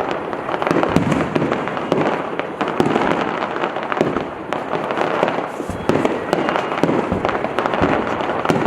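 Fireworks going off in a rapid barrage: many sharp bangs overlapping with dense crackling.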